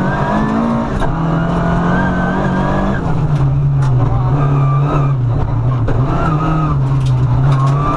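Rally car engine heard from inside the cabin, running hard on a gravel special stage. Its pitch drops about three seconds in, then rises and falls with the throttle, under steady tyre and road noise with short clicks of gravel striking the car.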